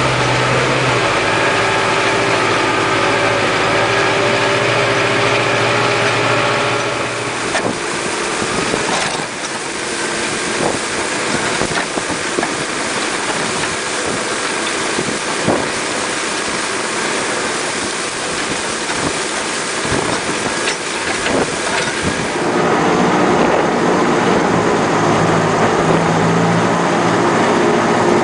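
Zetor Forterra 105 diesel tractor running steadily under load while ploughing. From about 7 s to 22 s the steady engine note gives way to a rougher rushing noise with scattered knocks, as the mounted plough turns over soil and stalks. The steady engine note returns near the end.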